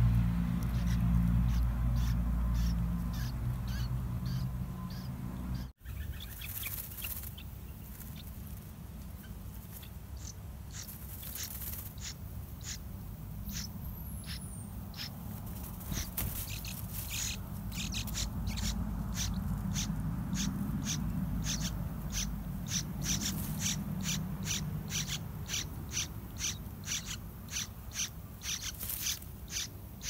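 Yellow-vented bulbul nestlings begging: short, high chirps repeated two to three times a second, growing denser and louder over the second half. A loud low rumble fills the first six seconds and stops abruptly.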